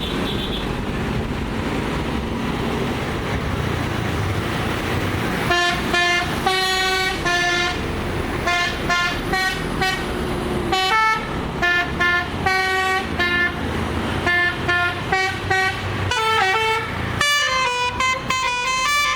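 Engine idling, then a Basuri 'telolet' multi-tone musical horn playing a melody of short notes from about five seconds in. Near the end it switches to a longer alternating two-note pattern.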